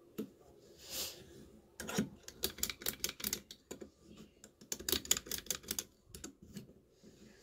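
Small metal lock cylinders and keys being handled, giving quick runs of sharp clicks and clinks, loudest about two seconds in and again about five seconds in.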